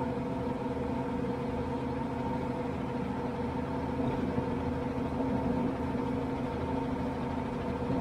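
Sprayer's diesel engine idling steadily, an even hum with no change.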